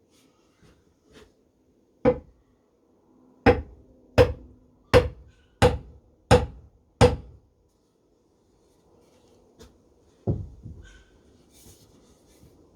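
Knocks driving a block splitting maul's head down onto its new spotted gum handle during a snug test fit. One knock, then six evenly spaced blows about two-thirds of a second apart, then one more near the end, each with a short ring.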